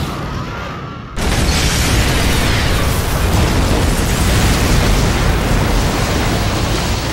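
Large house explosion as a film sound effect, set off by ignited gas. It hits suddenly about a second in and stays loud for several seconds, with a deep low end.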